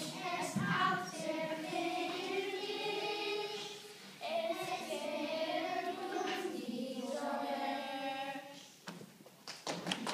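Group of children singing together on stage in a sung performance, in phrases with a brief break about four seconds in; the singing ends a little over a second before the end.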